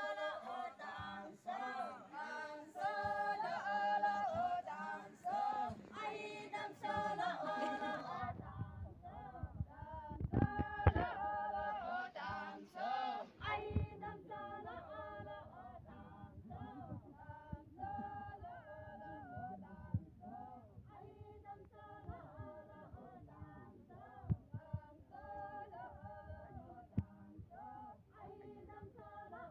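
Unaccompanied group singing in chorus, mostly women's voices. After about eight seconds the sound turns duller and quieter, and a few low thumps come in shortly after.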